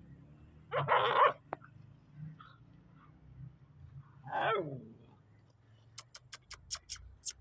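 Young dogs play-fighting: a loud, snarling bark about a second in and a wavering cry that bends in pitch at about four and a half seconds. Near the end comes a quick run of about seven sharp clicks.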